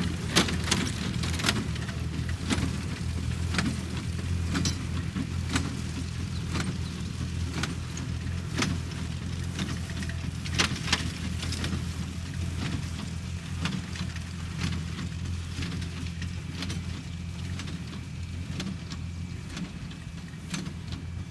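Tractor engine running steadily while a New Holland 66 square baler works behind it, its plunger knocking about once a second.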